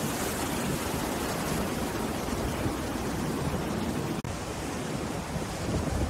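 Rough sea surf breaking and washing up a beach, a steady rush of noise, cutting out for an instant about four seconds in.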